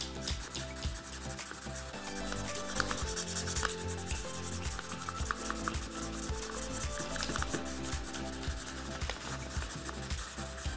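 Paper being coloured in: a colouring tool scrubbed back and forth over a folded paper boat, giving continuous quick scratchy strokes on paper.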